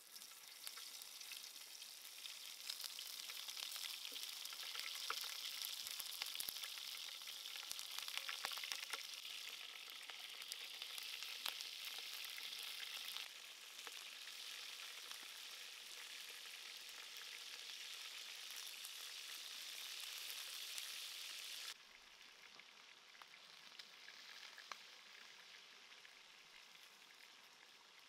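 Beef and vegetable skewers sizzling in hot oil in a frying pan, a steady hiss peppered with small spattering crackles. The sizzle steps down in loudness about halfway through and again about three-quarters of the way through.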